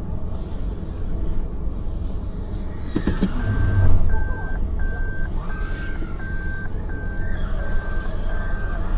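Steady low traffic rumble, then a knock about three seconds in, after which a vehicle warning alarm starts beeping at one steady pitch, evenly spaced at about one and a half beeps a second.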